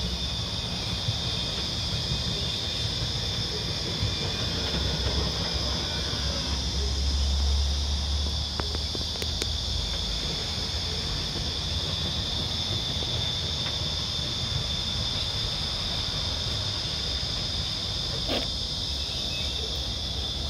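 A steady, high-pitched insect chorus drones on unchanged over a constant low rumble, with a faint click or two.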